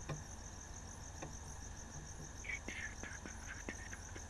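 Crickets chirping in a steady, high, evenly pulsing trill, with a few faint clicks.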